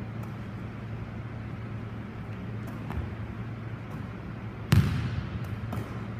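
One sharp smack of a volleyball about three-quarters of the way through, echoing around a gymnasium, with a few fainter ball touches around it. Under it runs a steady low hum.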